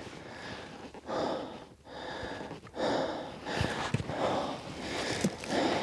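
A person breathing hard close to the microphone, about one breath a second, with a few light knocks mixed in.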